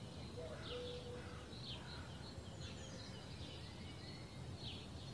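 Faint yard ambience: a few short, scattered bird chirps over a low, steady background rumble.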